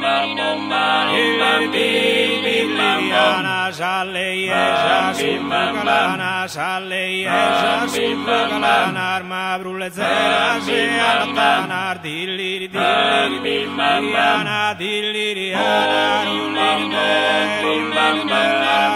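Sardinian folk song: a vocal chant in several voices over a steady held drone.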